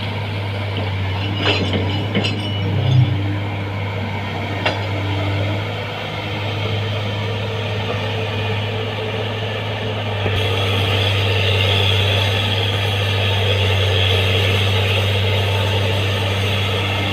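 Excavator diesel engine running steadily, with a few sharp metallic clinks in the first five seconds. It gets louder about ten seconds in, as if taking more load.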